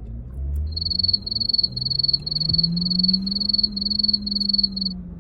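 Cricket chirping: a high, steady trill in even pulses about three times a second, stopping near the end. A low hum rises slowly in pitch underneath.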